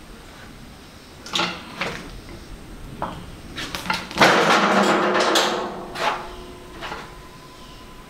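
A heavy log being rolled with a cant hook across a concrete floor: a few separate knocks, then about four seconds in a loud grinding rumble of bark on concrete that lasts over a second, followed by a couple more thuds.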